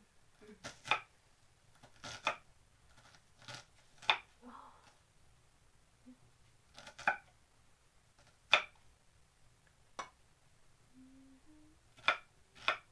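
Kitchen knife slicing a red onion on a wooden chopping board: about a dozen separate, uneven strokes, each a sharp tap of the blade hitting the board.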